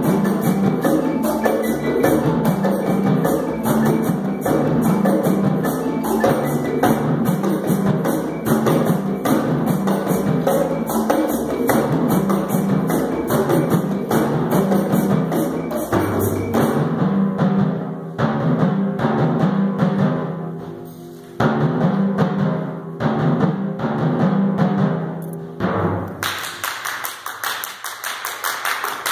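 Live percussion ensemble playing: drums, mallet keyboards and other percussion in a steady, rhythmic groove with a pulsing low bass line. The music drops away briefly about two-thirds of the way in, then ends with a final stroke near the end, and clapping begins.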